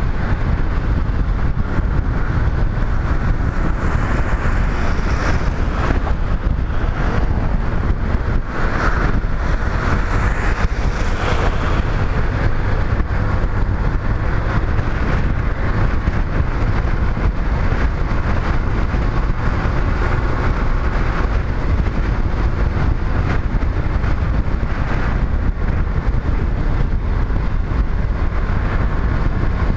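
Motorcycle riding at road speed: steady rush of wind and road noise over the bike-mounted microphone, heavy at the low end, with a brighter stretch of hiss between about four and twelve seconds in.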